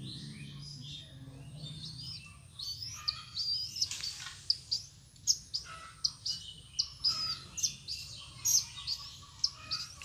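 Small birds chirping: many short, quick high notes, some rising or falling, coming thick and fast from a few seconds in.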